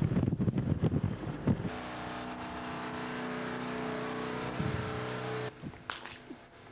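Wind buffeting the microphone, then a steady motor-vehicle engine drone that cuts off suddenly about five and a half seconds in.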